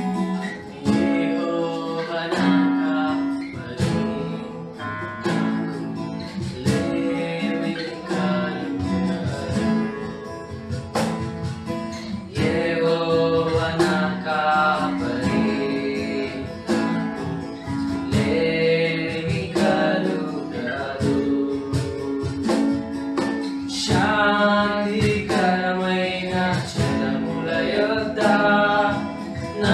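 Worship song played live on strummed acoustic guitar with cajón keeping a steady beat, and men singing the melody together.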